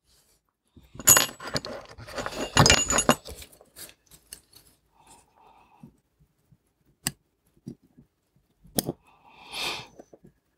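Small metal watchmaker's tools and parts clinking and clattering on the bench for a couple of seconds, with a bright metallic ring on two sharp knocks, followed by a few single clicks and a brief rustle near the end.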